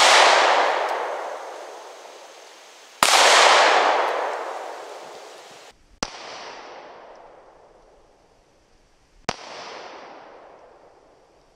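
Glock 43 subcompact 9mm pistol firing single shots, three of them about three seconds apart, each sharp crack trailing off slowly over a couple of seconds.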